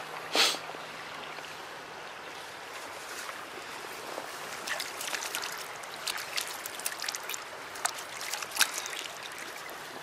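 Shallow creek water at the bank: a loud splash about half a second in as a rainbow trout is let go from the hand, then a scatter of small splashes and drips from hands moving at the surface, over the steady trickle of the stream.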